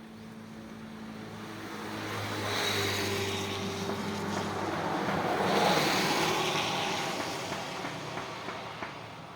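A motor vehicle passing by, its engine hum and road noise swelling to a peak about halfway through, then fading away.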